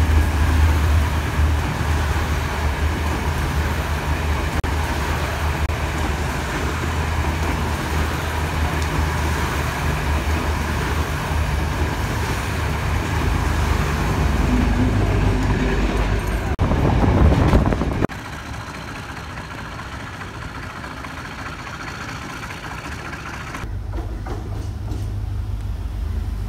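Sri Lankan diesel passenger train passing close by: a steady, loud rumble of carriages on the rails that swells just before it cuts off about three quarters of the way in. After a quieter stretch, a diesel locomotive's low, steady engine hum comes in near the end.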